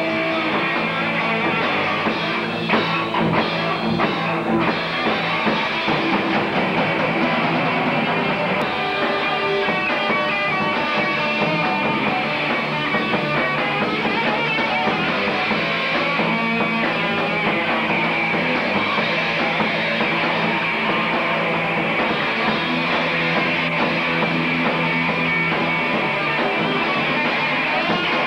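Live rock band playing electric guitars, bass and a drum kit at full volume, with a few hard drum hits a few seconds in.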